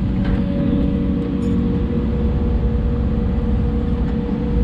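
Hidromek 140 excavator's diesel engine running steadily, a continuous drone with a steady hum.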